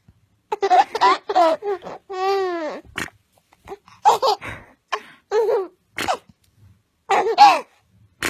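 A baby laughing in short bursts of giggles, with one longer drawn-out note about two seconds in.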